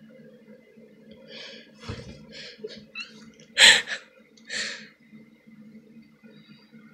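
A cat scrabbling and clawing at a bath towel on a tile floor: a run of short rustling scuffs of fabric. The loudest comes about three and a half seconds in, with one more soon after.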